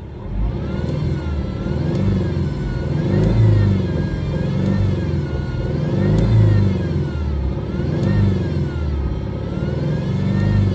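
Subaru EJ20 flat-four engine being revved up and down over and over, with a whine that rises and falls in pitch along with the revs. It is an abnormal noise from the accessory drive, which the title attributes to the alternator and idler pulley on a high-mileage engine.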